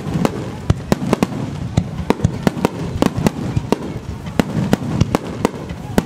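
Aerial fireworks bursting in a rapid barrage: sharp bangs about three a second, irregularly spaced, over a steady low rumble.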